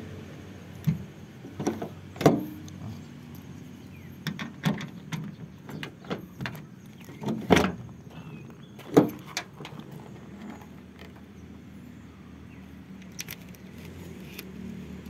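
Sharp clicks and knocks of the lock, latch and handle of a 1994 Toyota Kijang's rear door as the locked door is worked open. They come in an irregular string for about the first ten seconds, three of them loudest, then only a few faint clicks.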